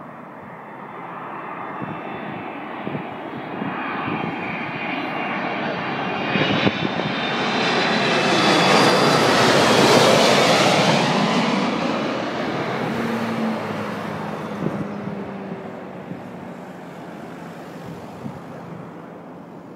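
Boeing 767-300 twin-engine jet airliner on final approach, passing low overhead with gear down. The engine noise and fan whine build to a peak about halfway through, then fade, the pitch dropping as the aircraft passes.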